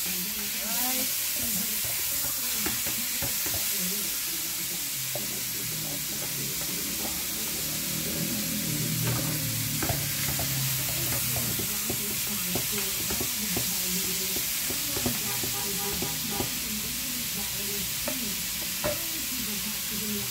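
Beef pieces sizzling as they fry in oil in a large metal pot, with a metal spoon stirring them and knocking and scraping against the pot now and then.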